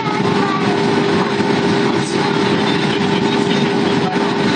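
Steady cabin noise of a jet airliner in flight: the drone of the engines and the rush of air over the fuselage, with a constant hum.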